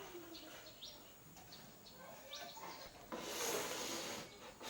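Faint, short, high chirps like small birds calling. About three seconds in, a rush of hiss-like noise lasts for about a second.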